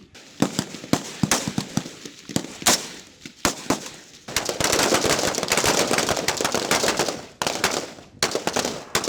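Many rifles firing on a rifle range firing line: scattered single shots from several shooters, with a dense stretch of rapid, overlapping shots in the middle.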